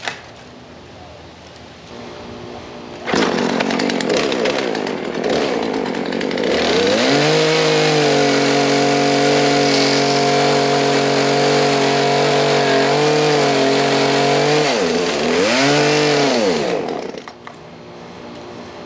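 Two-stroke gas chainsaw running, revving up to full throttle about a third of the way in and holding a steady high pitch for several seconds. It dips briefly, revs once more, then drops back near the end.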